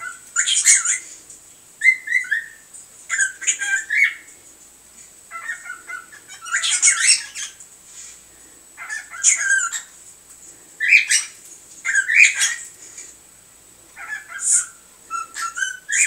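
Cockatiel chirps and squawky calls in short bursts every second or two, some notes gliding up and down, over a faint steady high-pitched whine.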